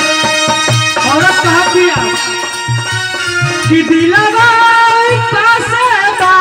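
Live Bhojpuri folk stage music: a steady drum beat under a keyboard melody, with a voice singing into a microphone, wavering in pitch.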